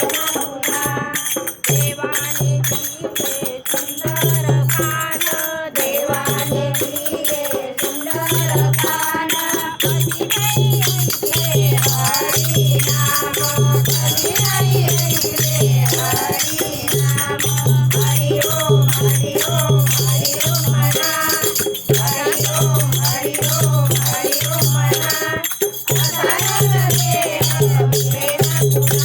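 A group of women singing a devotional bhajan together, with rattling hand percussion keeping a steady beat.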